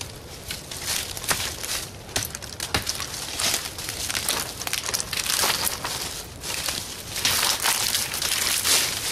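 A big chopping knife strikes a wrist-thick dead standing cottonwood sapling several times in the first few seconds, with sharp knocks. Then footsteps crunch and rustle loudly through dry leaf litter.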